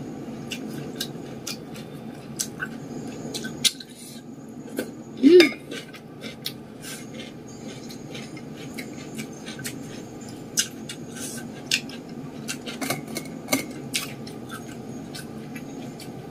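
Close-miked eating: many sharp clicks and crunches of chewing, with light clinks of fingers and food against a steel plate and a stone mortar, over a steady low hum. About five seconds in comes one brief loud vocal sound.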